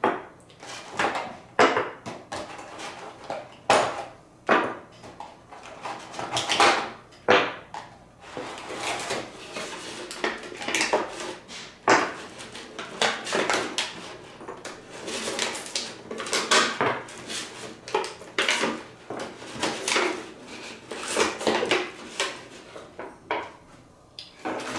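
Wooden toy fish being picked out of a clear plastic packaging tray and set down, with irregular clacks and knocks of wood against plastic and the table throughout.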